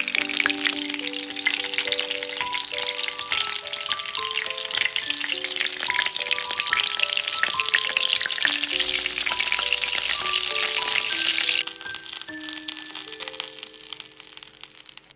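Oil sizzling and crackling around breaded chicken pieces shallow-frying in a pan, with light background music of short stepping notes. The sizzle drops away about three-quarters of the way through as the last pieces come out of the oil.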